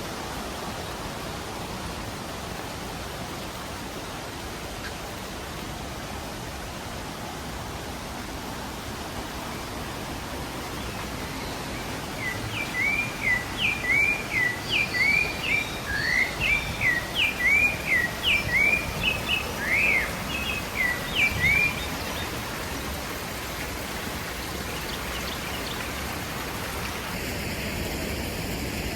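Steady rushing of a waterfall. About halfway through, a bird sings a run of short chirping notes, about two a second, for around ten seconds, louder than the water.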